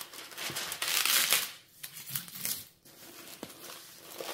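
Clear plastic cover film on a diamond painting canvas crinkling as it is lifted and handled, loudest about a second in, followed by quieter rubbing as hands smooth the canvas flat.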